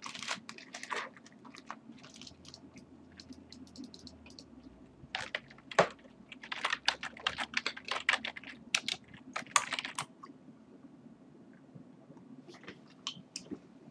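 Typing on a computer keyboard: a short burst of keystrokes at first, a longer run of rapid keystrokes a few seconds in, and a few scattered keystrokes near the end, over a faint steady hum.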